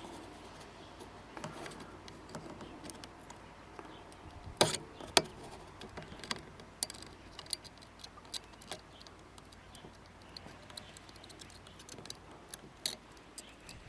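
Scattered light clicks and taps from small tools and wire being handled during soldering work, irregularly spaced, with two sharper clicks a little after four and a half and five seconds in.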